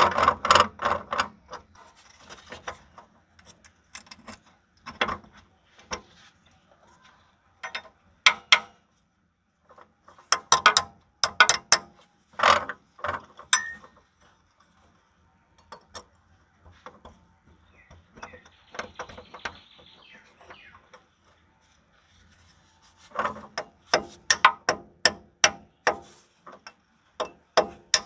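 Ratchet wrench clicking as a mounting bolt of a tractor hydraulic pump is turned down: a few scattered clicks at first, then a quick even run of about three clicks a second near the end.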